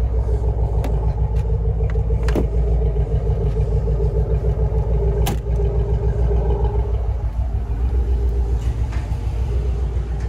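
A motor vehicle's engine running steadily with a low, fast even pulse, and two or three sharp clicks about two and five seconds in.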